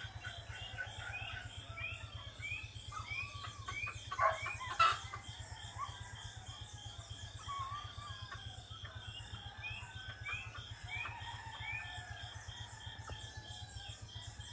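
Dawn birdsong with roosters crowing: a bird repeats a short rising note about two or three times a second, over a steady pulsing high tone and a low hum, with louder calls about four to five seconds in.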